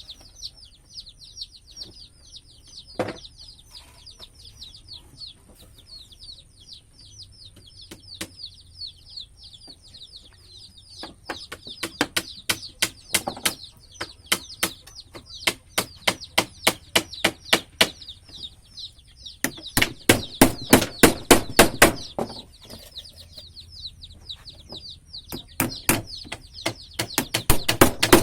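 Rapid hammer blows in runs of about three to four a second, the loudest toward the end, over steady high-pitched chirping of birds.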